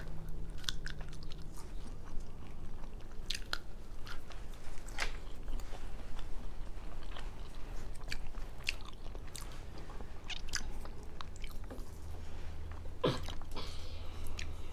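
A person chewing edamame close to the microphone: irregular soft crunches and wet mouth clicks, with one sharper knock near the end.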